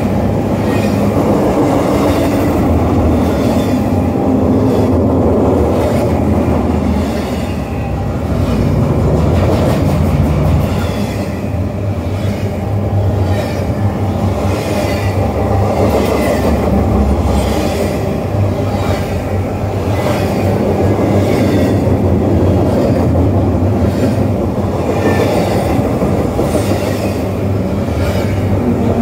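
Double-stack intermodal freight train of container well cars rolling past close by: a steady, loud rumble of steel wheels on rail with a regular clacking as the wheel sets cross rail joints.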